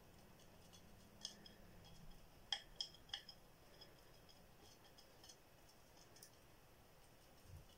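Faint, scattered clicks of a stiff plastic-bristle brush tapping and scraping over small crystal pieces as epoxy is worked into them, with three sharper clicks in quick succession about two and a half seconds in.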